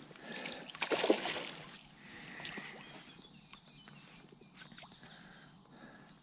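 Water splashing and sloshing at the bank about a second in, from the small tench and landing net being handled in the water, then faint birdsong.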